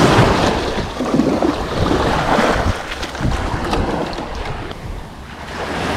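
Seawater splashing and sloshing as a plastic bucket is dipped into the shallow surf and filled. Small waves wash in, and wind buffets the microphone.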